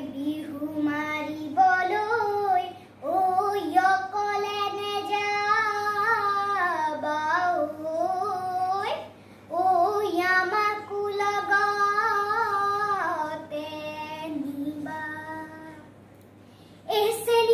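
A young girl singing a Bihu song solo, without accompaniment, in long phrases with held notes. It breaks off briefly about three seconds in and again about nine seconds in, and falls quiet near the end.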